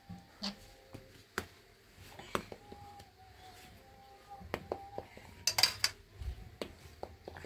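Scattered light knocks and clinks of household items being handled, with a louder scraping rattle about five and a half seconds in.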